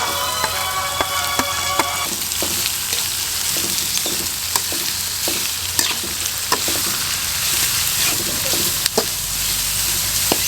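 Chopped onion and carrot sizzling in hot oil as they are stir-fried, with a spatula knocking and scraping against the pan about once a second. Light background music is heard over the first two seconds.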